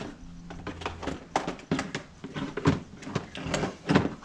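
Hard plastic knocking and clicking as the parts of a lawn mower grass catcher are pressed and fitted together, a handful of sharp separate knocks.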